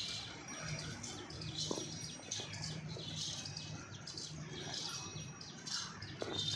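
Small birds chirping, many short high calls one after another, over a low steady hum.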